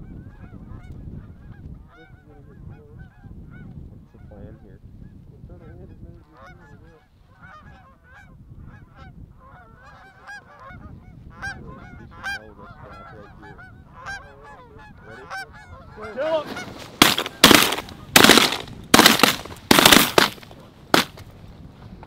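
A flock of Canada geese honking continuously overhead, the calls growing denser as the birds close in. Near the end comes a rapid run of about eight loud, sharp blasts within some five seconds.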